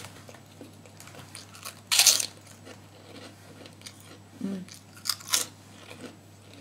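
Biting and chewing a crisp kerupuk (Indonesian cracker): one loud crunch about two seconds in, then two more crunches a little after five seconds, with quieter chewing between.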